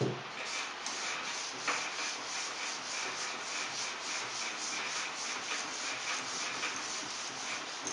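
Long hand sanding board with sandpaper rubbed back and forth over a skim coat of body filler on a car door, in quick, even, repeated strokes: block-sanding the filler level, opening with a knock as the board meets the panel.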